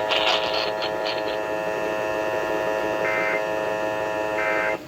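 Steady electrical hum on a weather-radio alert broadcast, with two short warbling data bursts about three and four and a half seconds in: the Emergency Alert System end-of-message code that closes the warning.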